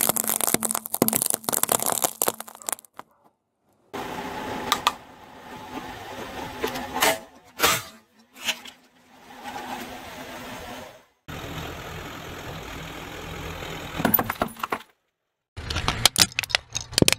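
A car tyre rolling over and crushing a series of objects, in separate stretches broken by short silences: walnut shells cracking in a fast run of crunches, then sharp cracks and pops as other items burst, and near the end a plastic toy crackling under the tyre.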